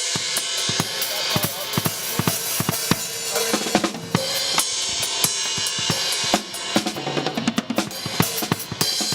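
Drum kit being played at a quick pace: snare and bass drum hits under a constant wash of cymbals.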